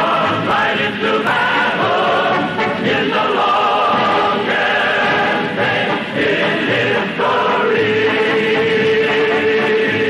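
Choral music: voices singing sustained chords that change every second or so, ending on one long held note in the last couple of seconds.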